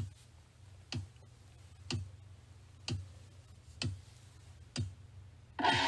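A deep drum struck slowly, about once a second, six times; each hit drops in pitch, over a low steady hum. Near the end a sustained distorted electric guitar chord comes in loudly, the start of the song's intro.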